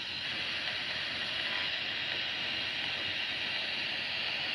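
Handheld spirit box (a radio sweeping through frequencies) giving out a steady hiss of radio static.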